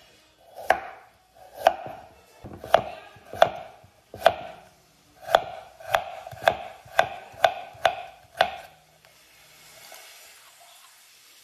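Knife chopping rainbow carrots on a cutting board: about a dozen sharp knocks, slow at first, then about two a second, stopping near the end.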